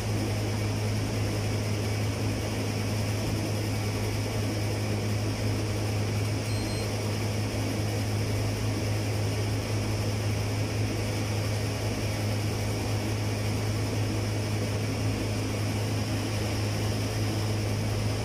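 Condenser tumble dryer running with a steady low hum and whirr, tested for the customer's complaint that it is noisy inside.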